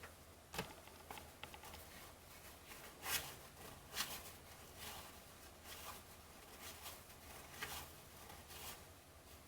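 Baseball trading cards being handled and flipped through by hand: faint soft swishes of card sliding on card, with a few sharper flicks and taps.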